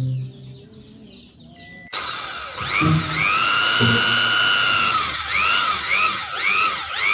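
Toy power tool's electronic whirring sound effect, switched on about two seconds in and running to the end, its pitch swooping up and down several times.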